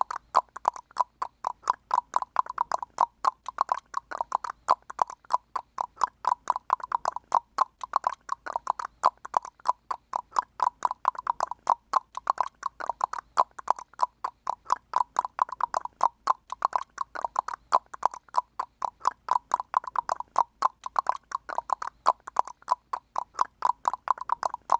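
A person clicking their tongue rapidly and continuously, several hollow clicks a second in an uneven rhythm.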